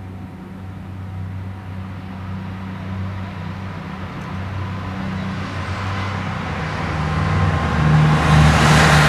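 JR KiHa 75 diesel multiple unit approaching, its diesel engines giving a steady low drone that grows louder throughout. In the last couple of seconds, as the train draws close, wheel and rail noise swells over the drone and becomes the loudest part.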